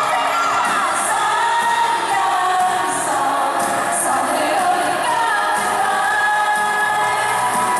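Several young women singing a pop song together into microphones, backed by a live band with keyboard, electric guitars and bass.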